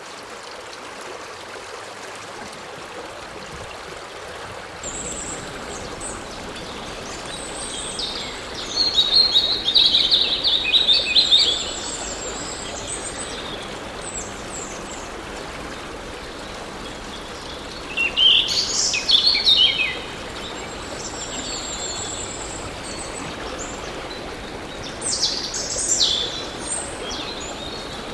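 Steady rush of a flowing stream, with wild birds singing over it: a loud run of quick chirping notes about eight seconds in, another about eighteen seconds in, and a shorter one near the end, with thin high calls in between.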